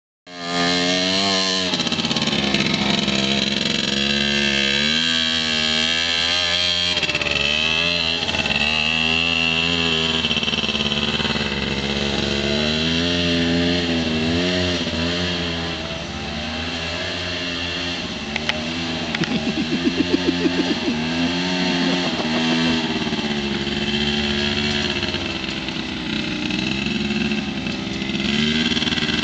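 Small youth quad (ATV) engines revving up and down as the quads ride a dirt track, the pitch rising and falling again and again. A short run of rapid, even pulses comes about two-thirds of the way in.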